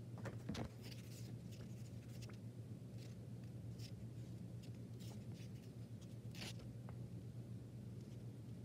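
Faint room tone with a steady low hum and scattered small clicks and rustles, the loudest just after the start and again about six and a half seconds in. No elephant seal calls are heard.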